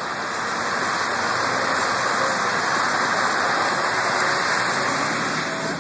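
Steady, even hiss of rain falling on the car and the wet highway.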